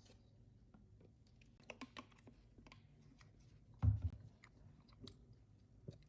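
Small, scattered clicks and taps of a mobile phone's parts and small tools being handled, with a louder low knock about four seconds in.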